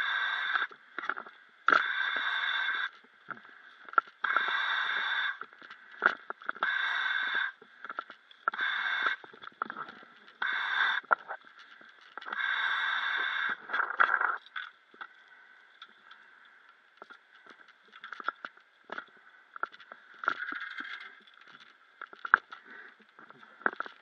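A harsh hiss comes in about seven bursts, each roughly a second long and some two seconds apart, and is the loudest sound. Over the last ten seconds come scattered crunches and clicks of footsteps on dry grass and brush.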